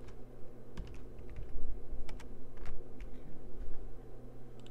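Computer keyboard typing: a run of irregular keystroke clicks, most of them in the first three seconds, over a steady low hum.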